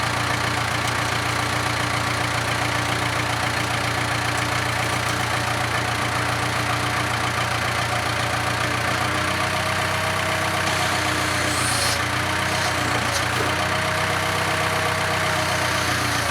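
Backhoe engine running steadily, its pitch shifting and dipping a few times in the second half as the machine works at pulling a stubborn tractor tire off its rim.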